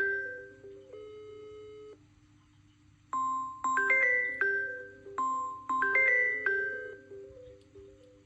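A smartphone ringtone: a short, bell-like mallet melody of struck notes that stops about two seconds in and, after a second's pause, plays again from about three seconds in.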